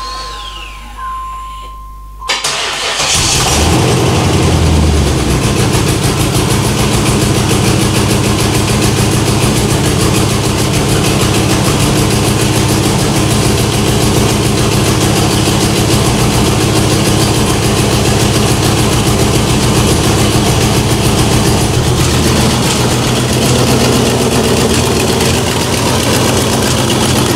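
1994 Camaro Z28's 5.7 L LT1 V8 starts about two seconds in, catches at once with a brief flare of revs, then idles steadily. It is the first start after a head-gasket rebuild, with the headers still loose and leaking exhaust.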